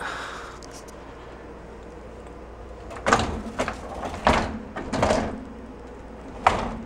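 A dishwasher being opened: after a few quiet seconds come a run of clunks and rattles from the door and racks, then one sharp clack near the end.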